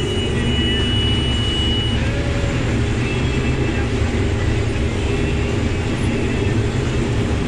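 Combine running steadily while shelling corn, heard from inside the cab: an even, low engine and machinery drone. A thin, steady high tone sounds over it for about the first two seconds, then stops.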